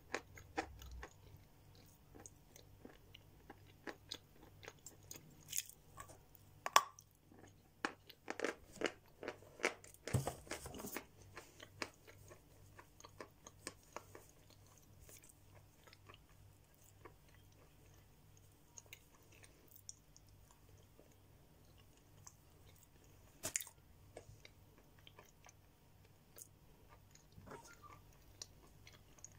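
Biting and chewing a chunk of natural edible chalk: a run of sharp, dry crunches, thickest in the first ten seconds, then sparser crunching clicks as it is chewed down, with one louder crunch late on.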